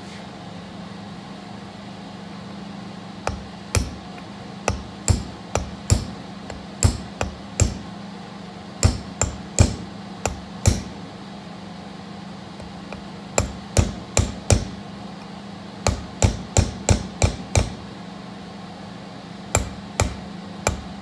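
Hammer striking a pin punch to drive a steel roll pin down through a lathe pinion gear: irregular clusters of sharp metallic taps, several in quick succession, then a pause, repeated. A steady low hum runs underneath.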